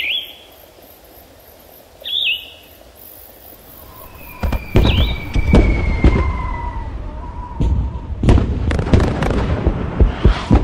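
Intro sound effects: two short bird-like chirps, then from about four seconds a rapid, irregular run of loud bangs and crackles, with a faint falling whistle and a steady tone under them.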